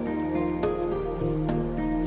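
Background music: calm, sustained pitched notes changing every half second or so, with sharp percussive ticks about two-thirds of a second in and again about a second and a half in.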